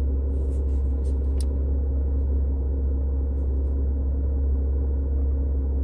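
Steady low rumble of a car running, heard inside the cabin. A few soft sips from a coffee cup come in the first second or two.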